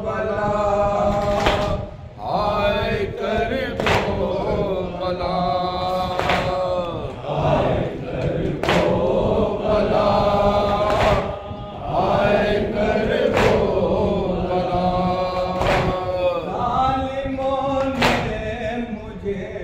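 A group of men chanting a noha, a Shia lament, in unison behind a lead reciter on a microphone. A sharp slap of hands striking chests together lands about every two and a half seconds, the beat of matam.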